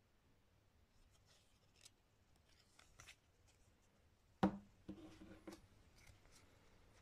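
Game cards and a cardboard box being handled on a table: a few light rustles and clicks, then a sharp knock about four and a half seconds in as something is set down, followed by a second of scraping.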